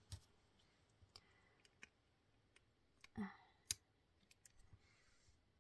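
Faint, scattered clicks of metal tweezers tapping on and picking up self-adhesive gems from their backing sheet. The sharpest click comes about three and a half seconds in.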